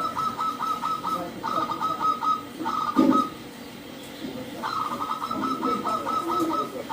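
Zebra doves (perkutut) cooing: phrases of quick, evenly spaced staccato notes, with a pause after about three seconds before the next long phrase. Lower, softer cooing sits beneath, with a brief louder low sound about three seconds in.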